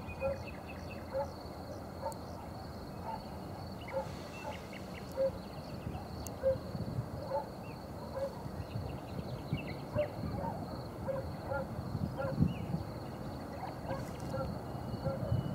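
Outdoor country ambience: wind rumbling on the microphone, gusting about twelve seconds in, over short low calls repeating about once or twice a second, a few bird chirps and a faint steady high whine.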